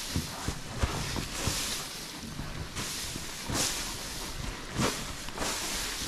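Loose hay swishing as it is pushed across a concrete feed alley up to the feed barrier, a series of short swishes about one a second.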